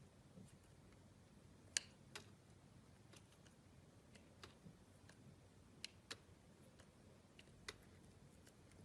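Slime being handled, giving faint, scattered soft clicks and pops at uneven intervals, the sharpest about two seconds in.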